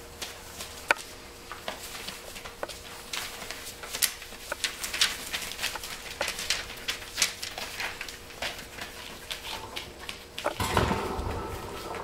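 Five-week-old Pointer puppies at play: irregular small clicks and scrabbles of claws and paws on a paper-covered floor, with paper crinkling as they tug at a plush toy. Near the end comes a louder scuffle with a short puppy vocal sound.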